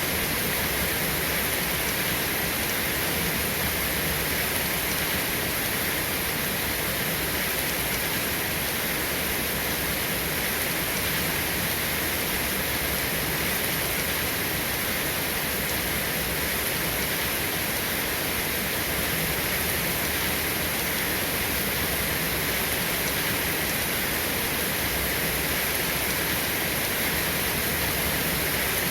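Heavy rain falling steadily, an even unbroken hiss with no rise or fall.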